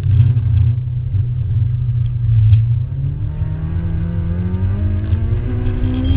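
Honda K20 inline-four in an EG Civic hatchback, heard from inside the cabin while driven hard. A heavy low drone eases briefly about three seconds in, then the engine note climbs steadily in pitch as the car accelerates.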